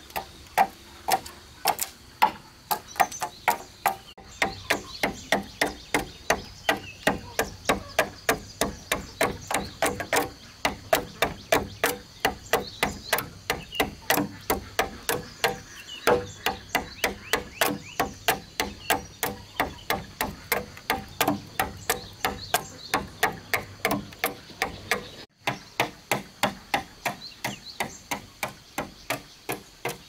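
Hatchet chopping and shaping wooden boat planks by hand: sharp blade-on-wood strikes, about two or three a second, on and on.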